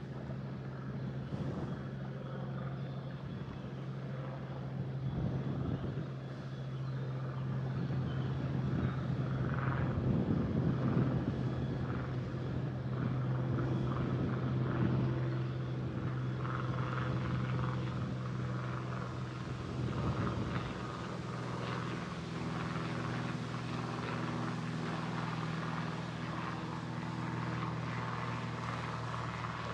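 A motor yacht's engine running at a steady low hum at slow cruising speed, with a rushing noise over it that swells in the middle.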